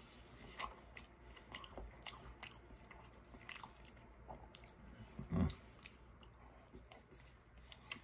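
A person chewing a mouthful of a soft, biscuit-wrapped sausage, egg and cheese roll-up, with many small wet mouth clicks. About five and a half seconds in there is one short, louder, low mouth or throat sound.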